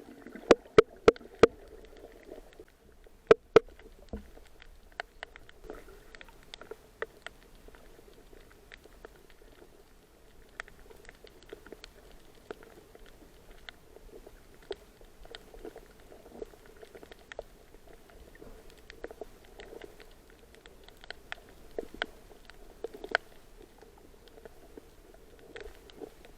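Twoband anemonefish making sharp pops underwater to scare off an intruder: a quick run of four or five loud pops near the start, two more about three seconds in, then fainter scattered clicks over a steady underwater hum.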